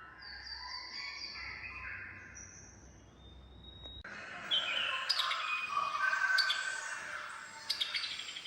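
Recorded birdsong played back through loudspeakers as part of an audiovisual bird-sound art installation. It starts as a few held, steady tones, then about four seconds in switches abruptly to a dense chorus of chirping birds.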